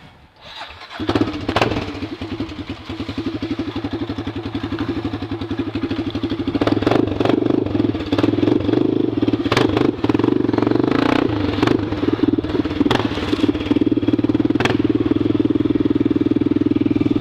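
Honda NX Falcon's single-cylinder engine running through a straight pipe with no muffler, a fast, even beat of exhaust pulses. It comes in about a second in and grows steadily louder.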